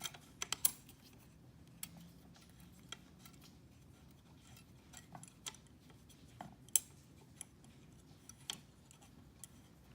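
Light metallic clicks and taps of an Allen wrench and a pedal return spring being worked into place on an aluminum gas pedal. A few quick clicks come in the first second, then single clicks spaced out every second or so.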